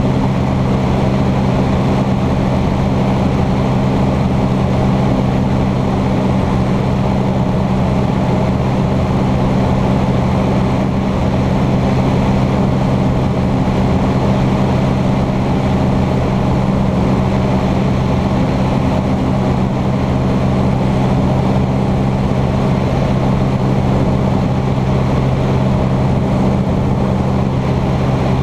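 Cessna 150's Continental O-200 four-cylinder engine and propeller running steadily in flight, heard loud inside the cockpit as an even, unchanging drone.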